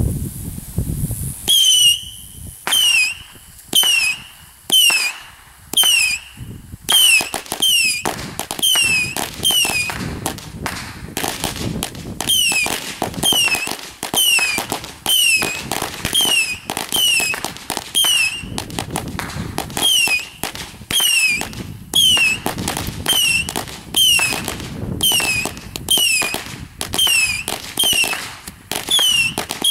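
Ground fireworks going off in a long rapid series: short falling whistles, one after another about once a second and then a little faster, each with sharp pops and crackle.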